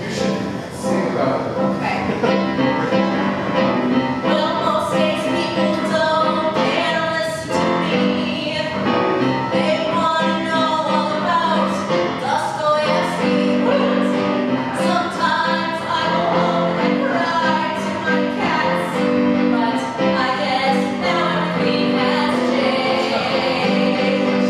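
A woman singing a song over live keyboard accompaniment, the keyboard holding steady chords beneath her voice.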